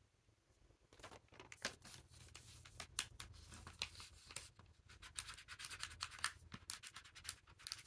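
Metal pen nib scratching across paper in quick, irregular strokes, starting about a second in.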